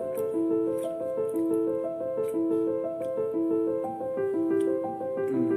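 Background piano music playing a melody of held notes.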